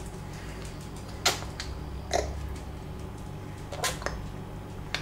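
Baby being spoon-fed: a few short, soft clicks and smacks of mouth and spoon, about four of them, over a steady low hum.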